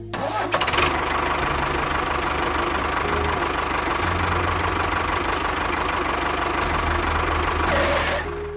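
An engine starts with a short burst and then runs at a steady, fast rattling beat, cutting off shortly before the end.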